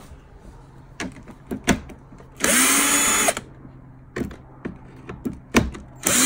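Cordless drill fitted with a T25 Torx bit backing out screws from a plastic bumper grille. It runs in two short bursts of about a second each, the second starting near the end, with sharp clicks and knocks from handling the plastic between them.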